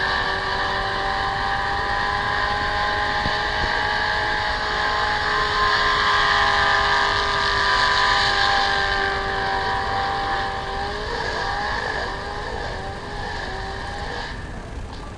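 C6 Chevrolet Corvette V8 held at steady high revs during a burnout, with the spinning rear tyres screeching on the pavement. The note wavers and eases a little in the last few seconds before cutting off.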